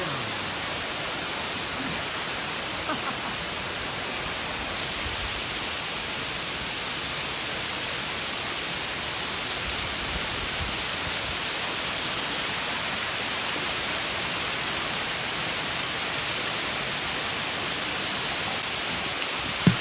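Ryusogataki waterfall: a steady, even rush of falling water.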